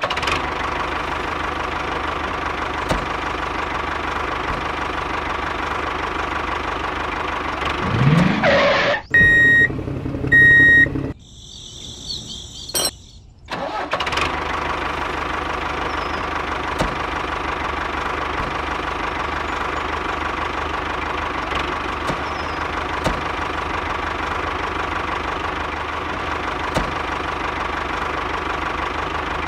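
Engine of a miniature DIY walking tractor running steadily with a constant drone. About eight seconds in, a loud rising sound and two short high beeps interrupt it, and the steady running resumes about fourteen seconds in.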